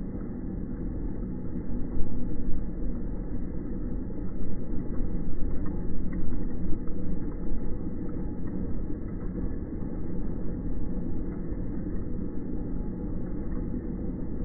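Street vehicle rumble from a cable car climbing the hill on its tracks, steady, with louder swells about two seconds in and again between about four and seven seconds.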